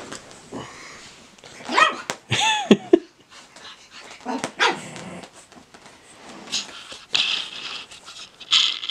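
Small dogs at play, a pug puppy and a Chihuahua, giving a few sharp high barks and yips about two seconds in, one sliding sharply down in pitch, with smaller yaps and scuffles after.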